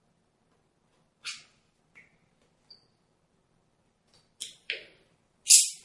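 Vinyl wrap film being handled: about six short, crisp rustles and scrapes, the loudest near the end.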